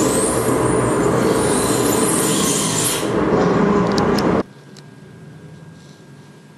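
Loud, dense electronic noise music played live from a table of electronics, with a heavy low end and a few sharp clicks. It cuts off abruptly about four and a half seconds in, leaving only faint hiss and a low hum.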